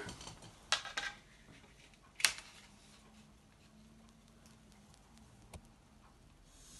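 A few light knocks of a wooden T-square being set against a wall, the sharpest about two seconds in, then near the end the faint scratch of a pencil drawn along its edge.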